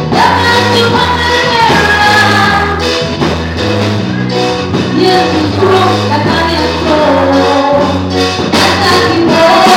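A woman singing gospel into a microphone over amplified band music, with drums and a low bass line moving from note to note.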